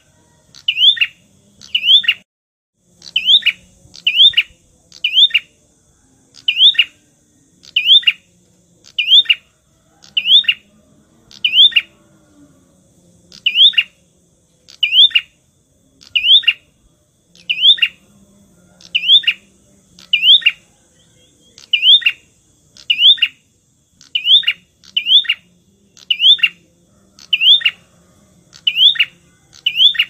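A prenjak songbird's call, played as a bird-lure recording: a loud, sharp chirp that sweeps up and then drops, repeated about once a second and often in quick pairs.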